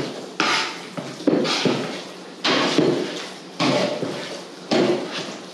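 A metal fork mashing avocado for guacamole in a wooden bowl, knocking against the bowl about once a second with each stroke.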